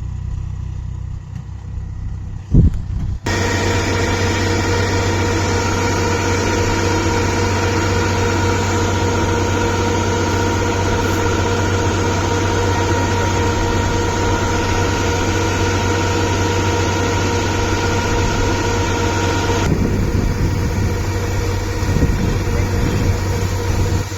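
Kubota rice combine harvester running: a steady engine hum, joined a few seconds in, after a single thump, by a loud whine of many steady machinery tones that cuts in abruptly. Near the end the whine drops away, leaving the lower, more uneven engine sound.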